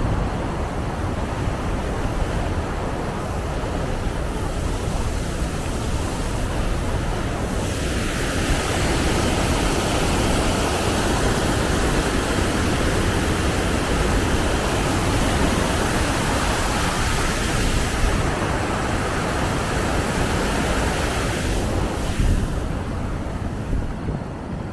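Steady rush of water pouring over the dam, the hiss growing louder about a third of the way in and easing off near the end, with wind rumbling on the microphone.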